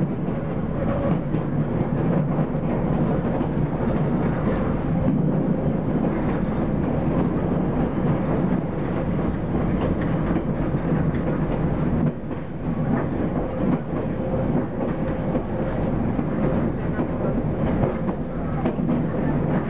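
Train running along the track, heard from the driving cab: a steady rumble of wheels on rail, with a faint steady hum and occasional clicks from the wheels.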